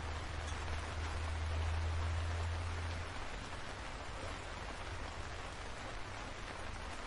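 Steady rain falling on the leaves of a tree, an even hiss of many drops. A low rumble underneath drops away about three seconds in.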